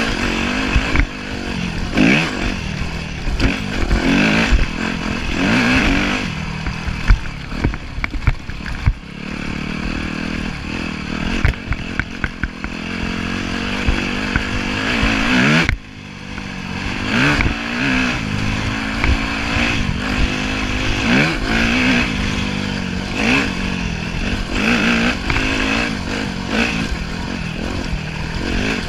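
Yamaha YZ250F dirt bike's 250cc four-stroke single-cylinder engine revving up and down repeatedly as it is ridden along a dirt trail, with scattered knocks and clatter from the bike over rough ground. The engine drops away sharply about sixteen seconds in, then picks up again.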